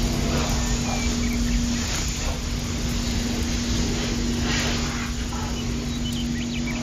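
Small electric water pump motor running with a steady hum, with a hiss of spray over it, as it puts out a small fire.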